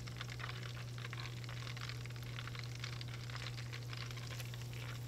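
Canola oil with butter in a pot bubbling and crackling as battered snapper pieces are dropped in to deep-fry: a fine, even crackle, with the oil not quite hot enough yet.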